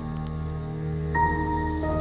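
Background music with long held chords; a new, higher chord comes in about a second in.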